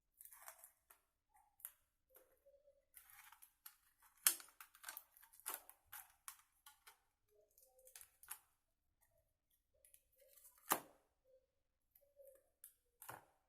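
Faint, irregular clicks, taps and rustles of hands working with small crafting materials, with two sharper clicks about four and eleven seconds in.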